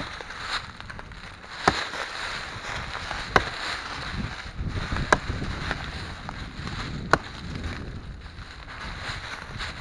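Hatchet chopping into a standing tree's bark, four sharp strikes a second and a half to two seconds apart, making hack-and-squirt cuts through the bark into the inner wood for herbicide.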